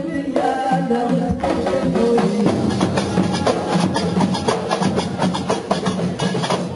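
Large hand-held frame drums beating a fast dakka marrakchiya rhythm, with men's voices chanting together. About two and a half seconds in the drumming thickens into dense, rapid strokes.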